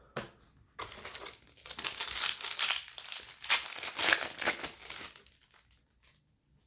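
Foil wrapper of a hockey card pack being torn open and crinkled by hand: a short click, then about five seconds of dense crackling that dies away near the end.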